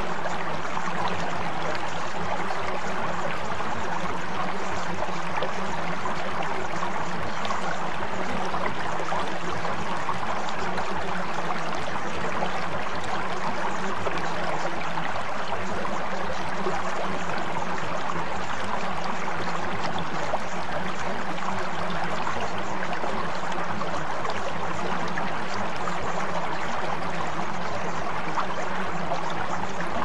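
Steady running water, an unbroken rushing and trickling like a stream, with a faint low steady tone underneath.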